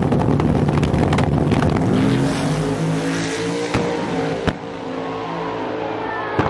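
Race trucks' engines revving hard at a drag strip's starting line, with a crackling exhaust. About two seconds in the engine pitch climbs, two sharp pops follow, and the sound then drops off as the trucks pull away down the track.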